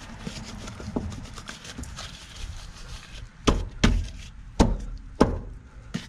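Loose upper control arm in a 2001 Honda Accord's front suspension clunking as it is rocked by hand: faint ticks at first, then several sharp metal-on-metal knocks about half a second apart in the second half. The play is in a worn control-arm bushing, which the mechanic believes causes the popping on acceleration and braking.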